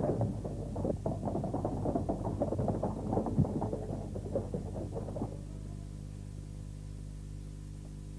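A dense clattering sound cuts off abruptly about five seconds in, leaving a steady low electrical hum with its overtones.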